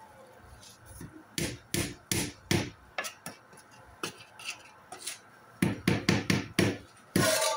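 Wooden spoon stirring sweet rice in an aluminium pot and knocking against the pot's rim: a series of sharp knocks, quickening into a rapid run near the end, followed by a louder clattering scrape.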